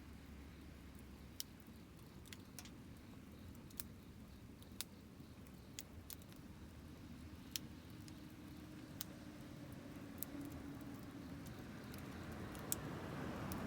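Wood campfire crackling: sharp, irregular pops and snaps over a low steady rumble of the burning fire, the rumble growing louder near the end.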